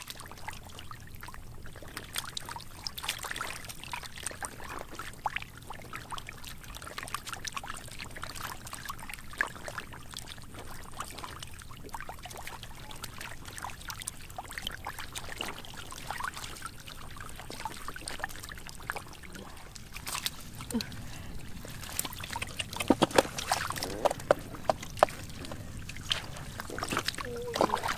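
Shallow muddy water splashing and trickling as stranded fish flap about, in many short splashes, louder and thicker in the last several seconds.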